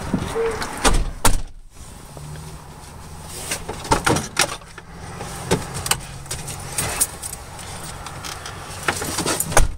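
Car cabin noise while driving slowly: engine and road noise with scattered clicks and knocks.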